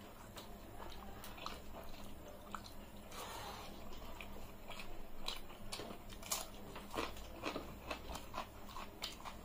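Close-up eating sounds: chewing and biting into crisp food, with many short wet clicks and smacks of the mouth.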